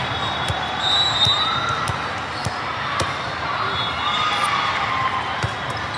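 Din of a large hall full of volleyball courts: volleyballs struck and bouncing on the floor, scattered sharp slaps every second or so over a steady murmur of crowd chatter, with a few short squeaks.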